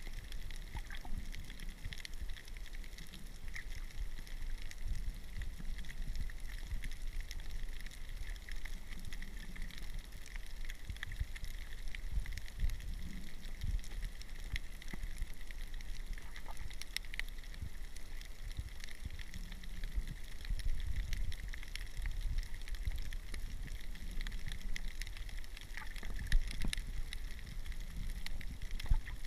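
Underwater ambience picked up by a submerged camera: a low, uneven rumble of moving water that swells and fades, with a faint scatter of fine crackling clicks over it.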